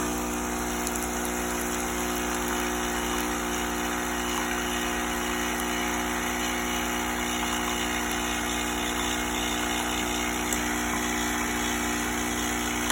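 Nespresso coffee machine's pump running steadily as it pushes plain water through with no capsule in, a continuous even buzzing hum. This is an empty flushing cycle run to heat the machine up so its coffee comes out hot again.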